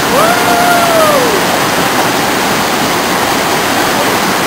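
Waterfall rushing steadily. A single drawn-out call rises and then falls in pitch over about the first second.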